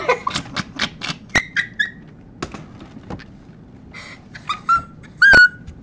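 A boy laughing hard: a quick run of breathy laugh pulses at the start, then high-pitched squeaky squeals, the loudest one near the end rising sharply in pitch.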